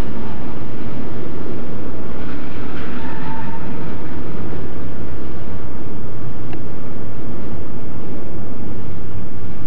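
FEPASA diesel locomotive 3862 running as it rolls slowly through the shed: a steady, loud low engine rumble.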